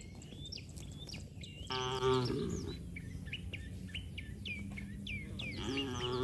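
A cow mooing twice: one call about two seconds in that falls in pitch at its end, and another starting near the end. Small birds chirp throughout.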